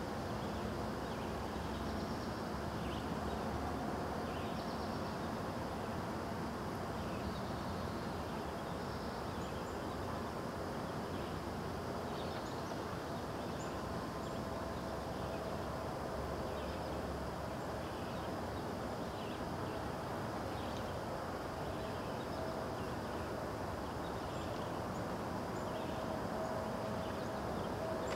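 Dawn outdoor ambience: small birds chirping here and there over a steady low rumble of background noise.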